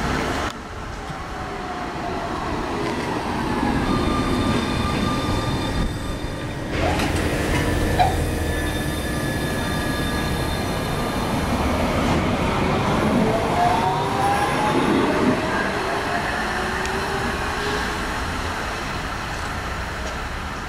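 Croydon Tramlink Bombardier CR4000 tram running on its rails, the motors whining up in pitch as it accelerates, with a steady rumble of wheels on track and some thin high squealing from the wheels.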